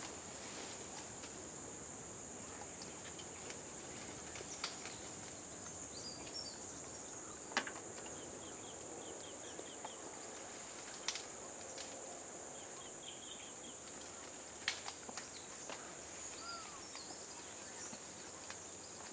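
Steady high-pitched insect drone of cicadas or crickets in scrub jungle, with a few sharp snaps of twigs or brush and some short chirps.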